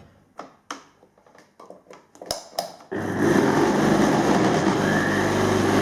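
A few handling clicks, then about three seconds in a Philips vacuum cleaner switches on and runs with a loud, rough hum. Its motor bearings have broken up, with balls fallen out of the race.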